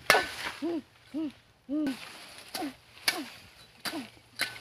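Machete chopping at woody vines and branches: a sharp strike right at the start and a few more in the second half. Between the strikes come low hooting calls, repeated about every half second.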